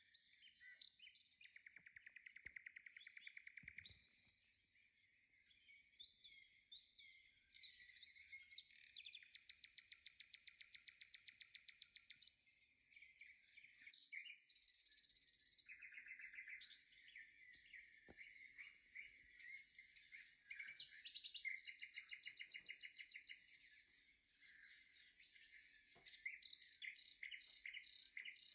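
Faint bird song: a small bird singing rapid trills and chirps, one phrase after another with short gaps.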